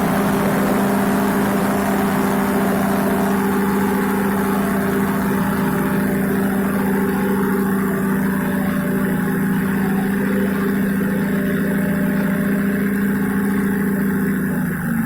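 Paramotor engine and propeller running at a steady, even throttle, holding one pitch throughout.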